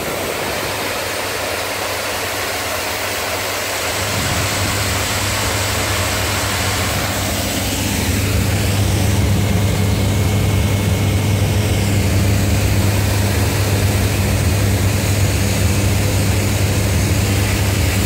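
Pressure-washer pump unit and Therma Tech hot-water boiler running together at full pressure: a steady low hum over a rushing hiss, the hum growing louder about four seconds in.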